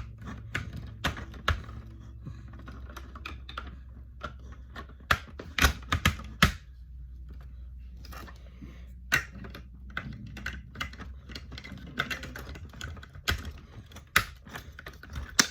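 Plastic LEGO bricks clicking and clattering as they are handled and snapped together: an irregular scatter of small sharp clicks, with a few louder clacks around the middle, over a low steady hum.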